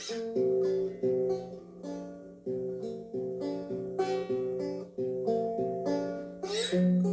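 Guitar played with a wooden incense holder used as a slide: a run of plucked single notes, with one note sliding up in pitch near the end.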